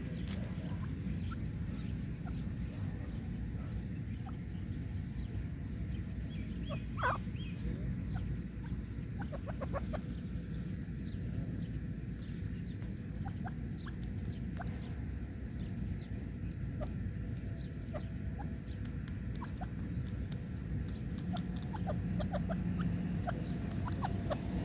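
Grey francolin giving scattered soft, short clucks while foraging, with one louder chirp about seven seconds in, over a steady low rumble.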